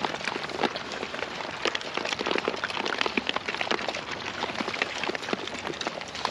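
Pigs moving about on pasture, their trotters crunching through dry leaves and grass in a dense, irregular crackling and rustling.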